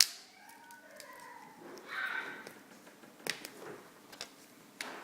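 A sharp click of plastic, then a few scattered light clicks and taps as laptop screen parts are handled and removed.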